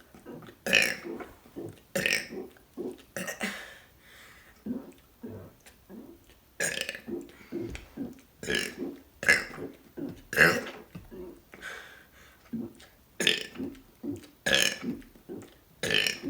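A person burping deliberately over and over in quick succession, one or two short burps a second, with a brief lull about four seconds in.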